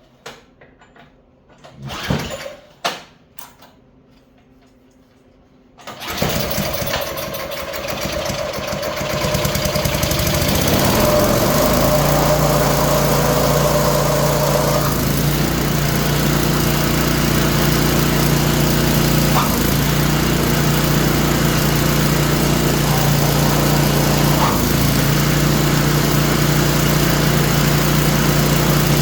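Craftsman snowblower's small engine being started: two short sounds about two and three seconds in, then the engine catches about six seconds in and settles to a steady run. A squealing tone rides over the engine for its first several seconds of running, which the mechanic thinks sounds like a bearing.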